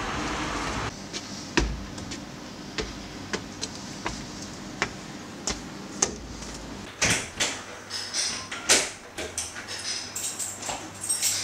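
An interior door being pushed open, then single sharp knocks at a walking pace, about one every half-second to second, as of footsteps. In the last few seconds comes a denser cluster of louder knocks and rustling.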